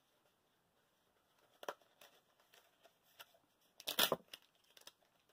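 Paper being handled, crinkling and rustling in short, scattered crackles, the loudest cluster about four seconds in.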